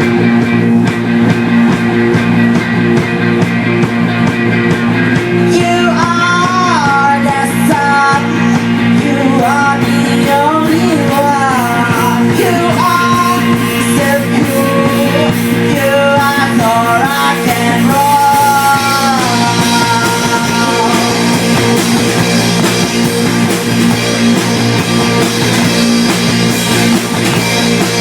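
Loud rock music from a band with electric guitars and drums. A bending lead melody runs over the top from about six seconds in until about twenty-one seconds.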